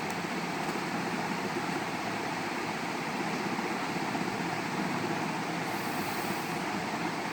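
Steady background noise, an even rumbling hiss with no distinct events.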